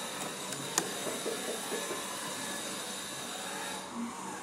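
Steady background hiss with faint high steady tones, broken once by a single light click a little under a second in.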